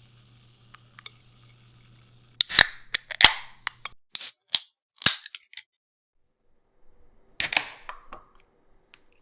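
Aluminium beer cans being cracked open: a series of sharp pull-tab pops, some followed by a short fizzing hiss, with the last one about two-thirds of the way through.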